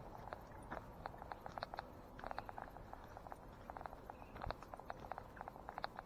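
Footsteps on a woodland trail: clusters of short, sharp clicks and crackles as a person walks along.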